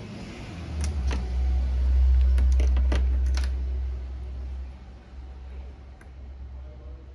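A handful of small sharp clicks and taps, most of them between about one and three and a half seconds, over a low rumble that swells and fades. They fit small repair tools on phone parts during an iPhone X teardown.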